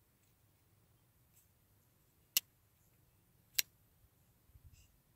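Two sharp clicks about a second apart from a Civivi folding knife as its blade is snapped into place by hand. A faint rustle of handling follows near the end.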